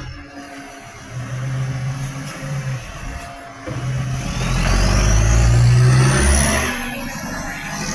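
Garbage truck's engine running loud through a leaking exhaust, building to a louder rev from about four seconds in, with a high whine rising in pitch as it does.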